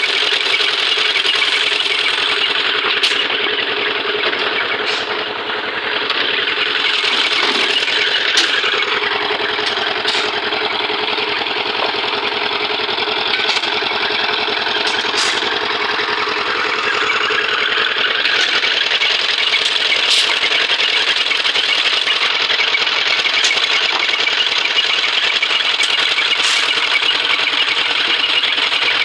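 Engine of road-construction machinery running steadily, its pitch dropping for several seconds around the middle and then rising again, with a few sharp clicks.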